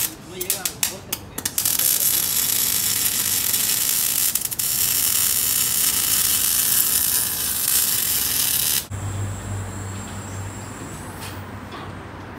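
Metalwork on the exhaust tailpipe as the new tips go on, with sparks flying: a quick run of sharp clicks, then about seven seconds of loud, steady hissing that cuts off suddenly. A quieter low steady hum follows.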